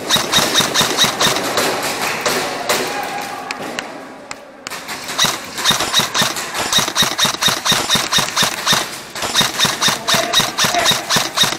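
Airsoft gun firing on full auto as a rapid stream of sharp clicking shots. Firing stops briefly about four seconds in, then resumes in a longer run of bursts.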